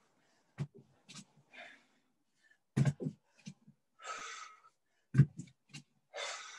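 A person breathing hard during exercise: three long, forceful exhalations, with short low pops or thumps in between. The loudest of these come about three seconds in and again about five seconds in.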